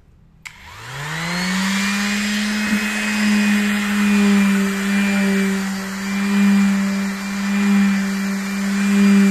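Pneumatic orbital sander starting with a sudden hiss of air about half a second in, its pitch rising over about a second as it spins up, then running steadily while wet-sanding a car body panel.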